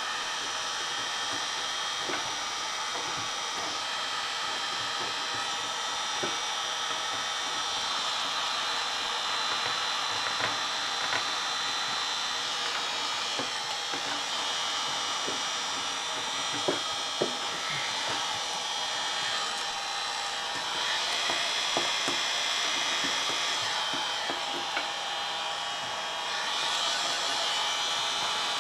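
Wagner electric heat gun running steadily, a whine over the rush of hot air, heating vinyl wrap film so it can be stretched. A few small clicks now and then.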